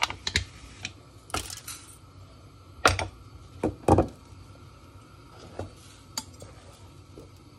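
Measuring cup scooping dry rice out of a large glass jar: a string of sharp clinks and knocks of cup on glass and rattling grains, the loudest about three and four seconds in, fewer and fainter after.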